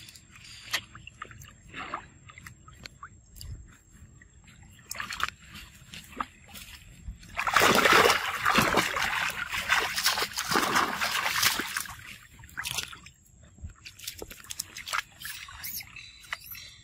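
Macaques splashing and wading in a shallow pool of water. There are scattered small splashes and drips, with about four seconds of heavy splashing and sloshing in the middle.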